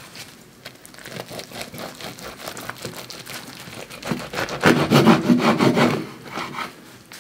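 Knife sawing back and forth through a baguette cheesesteak sandwich, crunching through the crust and the steak filling. The crunching is loudest and densest for a second or so about two-thirds of the way through.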